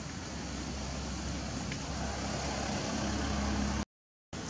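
Steady outdoor background noise with a low engine hum that grows louder, then cuts off abruptly near the end.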